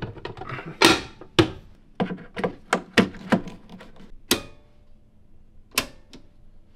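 A series of sharp clicks and knocks from electrical hardware being handled: a power cord seated in a metal generator inlet box and at a portable power station, and circuit breakers snapped over in a breaker panel. One metallic clank about four seconds in rings briefly.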